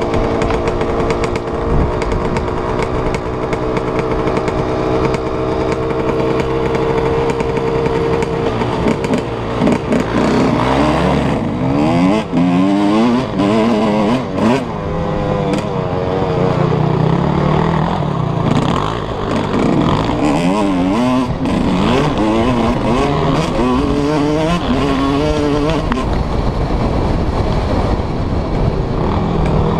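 Suzuki RM125 two-stroke motocross engine heard on board, held at steady high revs at first, then revving up and down over and over from about nine seconds in.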